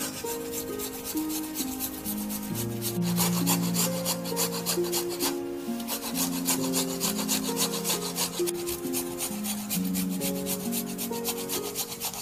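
A beetroot being rubbed up and down a flat metal hand grater in quick, rasping strokes, with a brief pause about five seconds in. Background music plays underneath.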